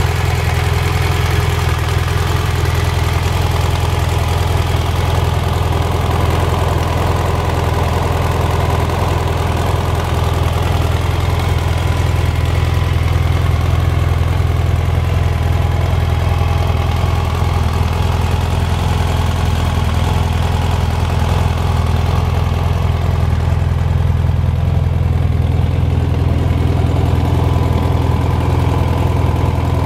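2016 BMW F 800 GS's 798 cc parallel-twin engine idling steadily.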